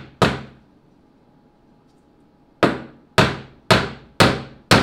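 Claw hammer striking a stack of glued wood strips on a workbench: one blow, a pause of about two seconds, then a steady run of five blows about two a second, each a sharp knock with a short ring.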